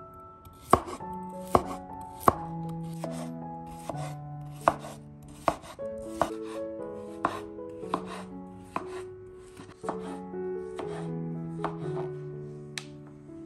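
Chef's knife slicing a cucumber into rounds on a bamboo cutting board: a steady run of crisp cuts, each ending in a sharp knock of the blade on the wood, roughly one a second. Soft background music with held notes plays underneath.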